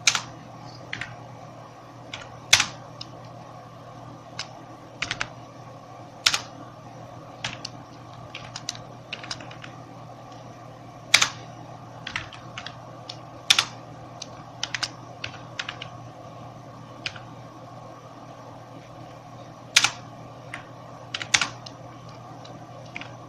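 Sparse, irregular keystrokes on a computer keyboard, mostly single taps with a few short runs of two to four, over a steady low hum.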